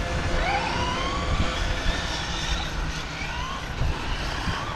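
Radio-controlled car's motor revving, its whine rising in pitch again and again over about a second each time, over a rough noisy rumble.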